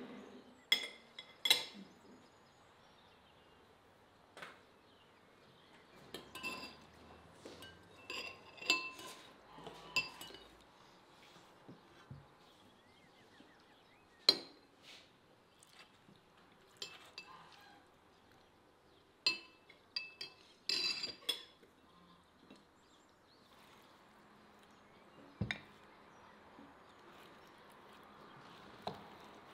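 Kitchenware clinking: metal utensils tapping on dishes or pans in scattered, irregular light clinks with short ringing. The sharpest clink is about halfway through, and a quick run of several comes about two-thirds in.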